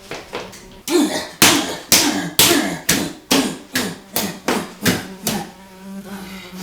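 A rapid series of about a dozen hard whacks, two to three a second, from someone swatting at flies. A housefly's buzz is cut off while the whacks go on and comes back near the end.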